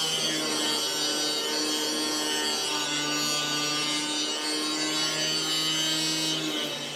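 Power tool cutting sheet metal: a steady motor whine under a loud, hissing cut that drops off sharply near the end.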